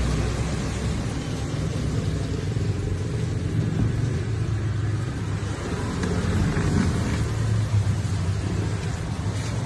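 Motorcycle engine running steadily at a fairly constant, low speed.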